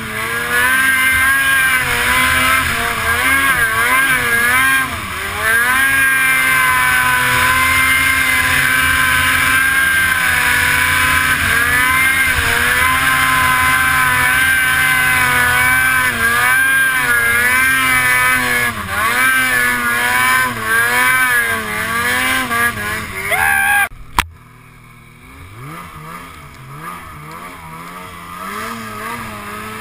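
Snowmobile engine at high revs, its pitch rising and falling continuously as the throttle is worked. About 24 seconds in, a sharp click comes and the sound drops suddenly to a much quieter engine note that climbs in pitch.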